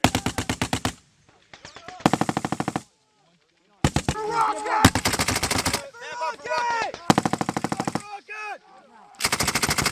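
Belt-fed machine guns firing at the rapid rate: five bursts of rapid, evenly spaced shots, most about a second long, with one longer burst of about two seconds near the middle.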